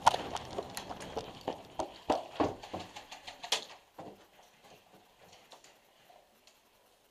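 Quick footsteps on dirt, about three steps a second, slowing and fading out about four seconds in to near silence.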